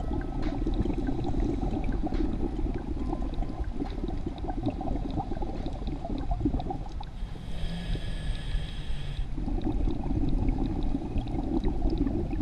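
A scuba diver breathing through a regulator underwater: a long exhale of bubbles gurgling, then a hissing inhale about seven seconds in, then bubbling again.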